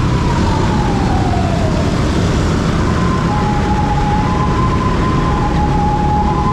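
Emergency vehicle siren in traffic: a falling wail that dies away over the first two seconds, then from about three seconds in a two-tone hi-lo pattern alternating about once a second, over a steady low rumble of road noise.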